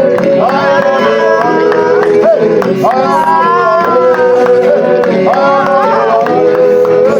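Worship music: voices singing long, sliding notes over a steady held instrumental backing.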